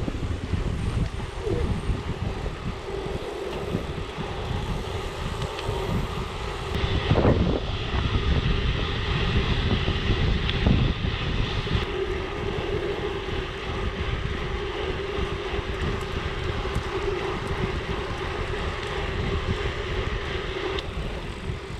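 Mountain bike tyres rolling along the road with a steady hum and the bike's rattle, while wind buffets the microphone.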